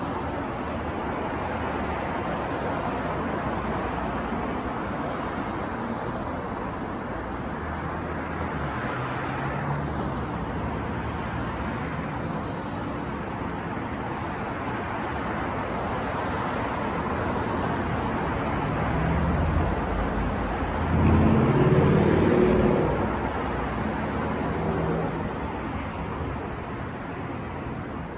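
Steady city street traffic noise, a dense hiss of passing cars. About twenty seconds in one vehicle's engine grows louder, peaks for a couple of seconds, then fades back into the traffic.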